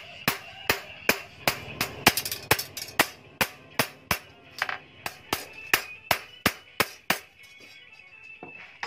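Hand hammer striking a rebar sword blade held with tongs on a steel post anvil: a quick, even run of sharp metal-on-metal strikes, about three a second, that stops after about seven seconds.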